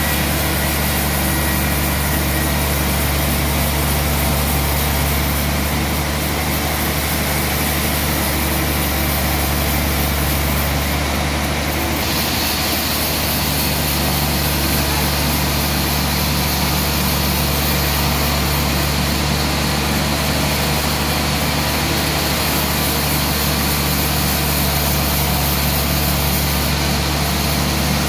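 Large log band-saw mill running steadily: a low machine hum under a broad hiss. About twelve seconds in, the hiss changes and a higher band sets in.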